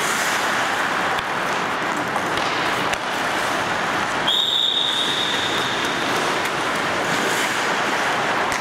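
Hockey practice on an ice rink: skates scraping across the ice, with an occasional knock of stick or puck. About halfway through a steady high-pitched tone starts sharply and holds for about two seconds.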